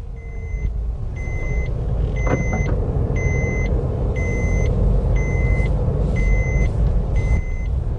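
Electronic warning beeper sounding about once a second in even, half-second beeps, over the low running noise of a car engine and tyres.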